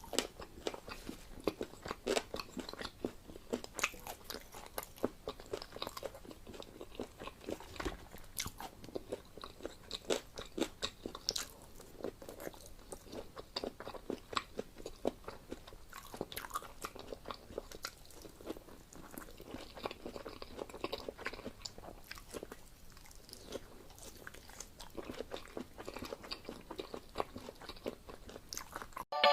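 A person chewing and biting into food, with many irregular crunchy clicks of mouth sounds.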